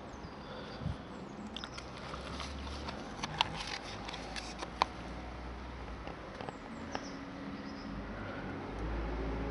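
Handling noise: scattered sharp clicks and taps over a low rumble as a plastic New Bright RC monster truck toy is turned over in the hand. The two loudest taps come about three and a half and five seconds in.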